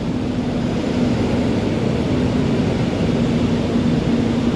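Honda ADV 150 scooter's single-cylinder engine idling steadily, warmed up after a long run, with an even hum.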